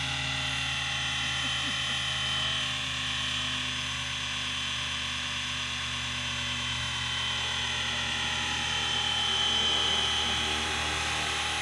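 FW450 electric RC helicopter in flight: a steady whine of its motor and rotor blades, growing a little louder for a moment about nine seconds in.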